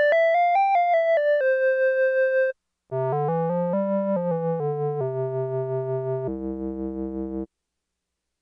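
Technics SX-K200 keyboard's solo synth clarinet voice playing two short melodic phrases. The first rises and falls and ends on a held note. After a short break the second phrase is lower, moves down and ends on a low held note.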